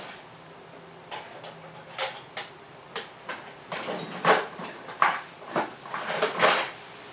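Tools and workbench gear being rummaged through and handled: a scatter of sharp knocks and clatters, sparse at first, then coming thicker and louder over the last three seconds.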